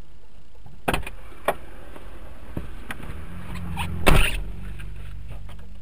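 Dashcam recording from inside a car's cabin: steady engine and road hum, two sharp clicks about a second in, then a rising rumble and a loud bang a little after four seconds in.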